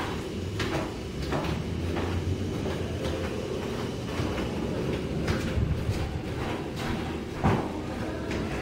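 Thunderstorm: a low, rolling thunder rumble that swells toward the middle, with scattered sharp taps throughout and one louder knock about seven and a half seconds in.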